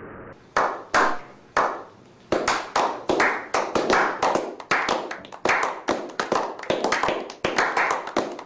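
A few people clapping their hands: three slow single claps at first, then picking up to a steady clapping of about three or four claps a second.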